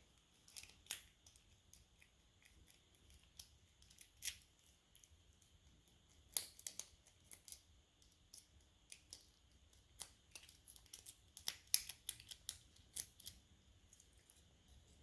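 Small irregular metal clicks and scrapes of lock-picking tools, a tension wrench and pick, being fitted and worked into the keyway of a cheap padlock. The clicks come more thickly about two thirds of the way in.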